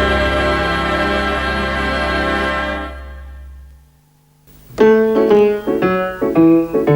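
Recorded music: a long held chord fades out over the first few seconds. After a short gap, a piano starts a lively tune of short struck notes and chords.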